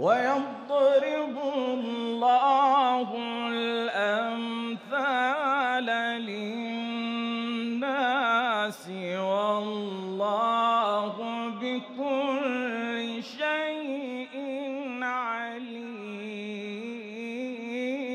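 A man's voice reciting the Quran in the melodic tajweed style of a qari. He sings long, ornamented melismatic phrases whose pitch wavers and turns, broken only by a few brief breaths.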